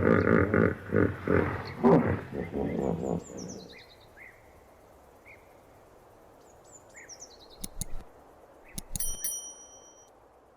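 Hippopotamus bellowing: a loud pitched call that breaks into a run of short pulsed honks and fades out about four seconds in. After it comes quiet background with small bird chirps and a few sharp clicks near the end, one of them with a short ringing tone.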